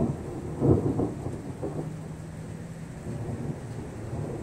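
Thunder rumbling, swelling to a louder peak about a second in and then rolling on more softly.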